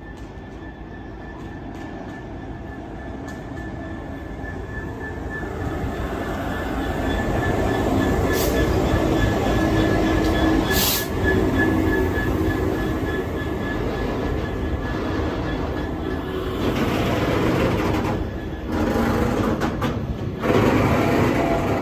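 GB Railfreight Class 66 diesel locomotive running through a station: its two-stroke diesel engine grows louder as it approaches and passes close by. The loaded freight wagons behind it then roll past with wheels clattering on the rails.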